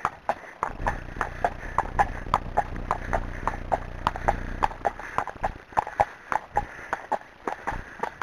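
Friesian horse's hooves clip-clopping on a tarmac lane at a fast trot, a quick, even rhythm of hoof strikes.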